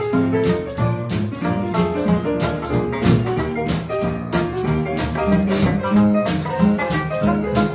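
A traditional New Orleans jazz band playing live: trumpet, clarinet and trombone over banjo, piano, string bass and drums keeping a steady beat.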